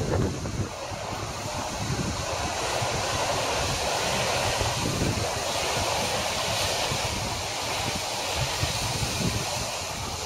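Steady hiss of surf breaking on a beach, with wind buffeting the microphone in uneven low rumbles.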